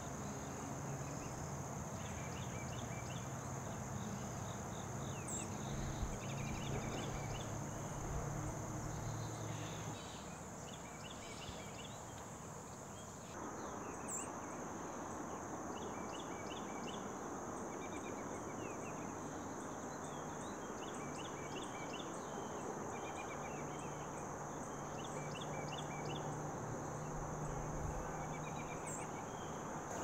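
Insect chorus of crickets and katydids: a steady high-pitched drone with repeated rhythmic chirping trills over it, and a low hum underneath at times.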